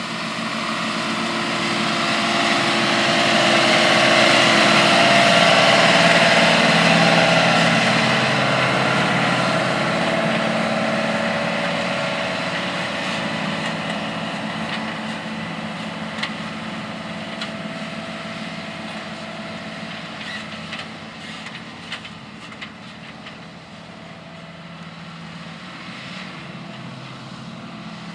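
John Deere R4045 self-propelled crop sprayer running across the field, its engine growing louder to a peak about six seconds in, then slowly fading as it moves away.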